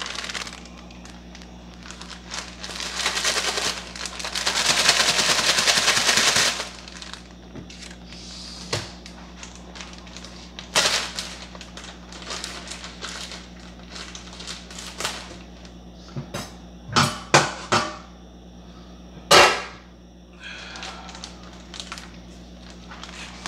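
Plastic packaging of brown sugar rustling and crinkling for a few seconds as it is handled and opened, then a string of sharp clicks and snaps, the loudest a little past the middle. A faint steady hum runs underneath.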